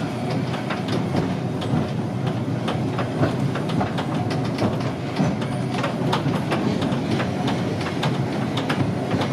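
Vintage electric tram running along street track: wheels rattling with frequent irregular clicks and knocks over the rails, over a steady low hum.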